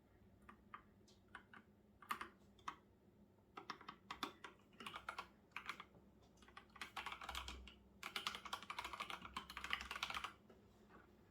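Typing on a computer keyboard: a few scattered keystrokes, then quick runs of keystrokes from about three and a half seconds in, the longest run near the end before the typing pauses.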